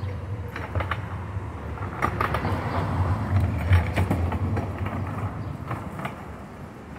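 Street traffic: a low rumble that builds to a peak a little past halfway and then fades as a vehicle passes close by, with a few scattered clicks and knocks.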